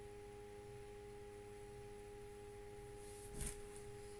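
Faint steady electrical whine of two held tones, with one brief soft noise about three and a half seconds in.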